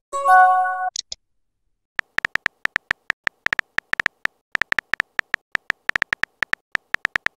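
A short electronic chime of several steady notes at the start, then rapid smartphone keyboard tap clicks, about five a second and unevenly spaced, as a text message is typed.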